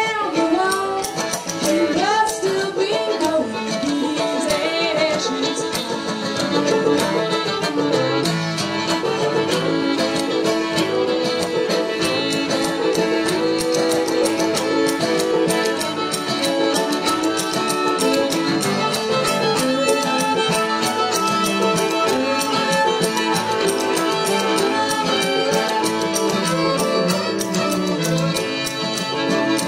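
Old-time string band playing a tune: two fiddles, cello, guitar, banjo and spoons together, the fiddles leading.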